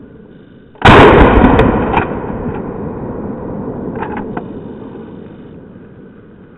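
A single blast from a Mossberg Maverick 88 12-gauge pump-action shotgun about a second in, ringing out and dying away over about a second. About three seconds later come a few quick clicks as the pump is worked.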